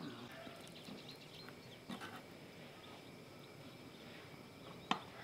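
Quiet handling of soft white cheese being cut on a wooden board and packed into glass jars: soft knocks about two seconds in and one sharp tap near the end, over faint farmyard animal sounds.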